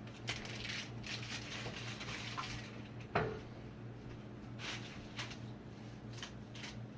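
Faint handling noises, light clicks and rustles, over a steady low hum, with one louder short sound about three seconds in.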